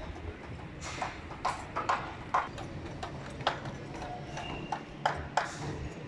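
Irregular sharp knocks and clacks, about nine in six seconds, unevenly spaced, from formwork and shuttering work.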